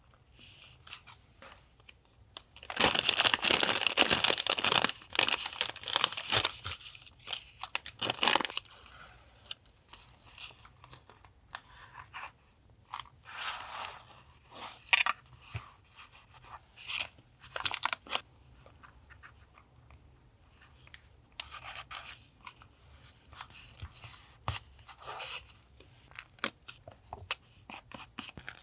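Paper being handled and torn: a long, loud stretch of rustling and tearing about three seconds in that lasts some five seconds, then short, scattered rustles and taps.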